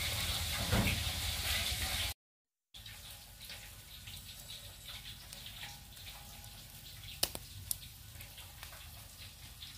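Charcoal fire crackling and hissing loudly, then, after a short silent break, chicken pieces sizzling more quietly in a wire grill basket over the coals, with two sharp pops about seven seconds in.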